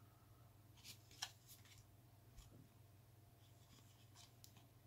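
Near silence with faint rustles and light clicks of trading cards being handled and slid against one another, the loudest about a second in.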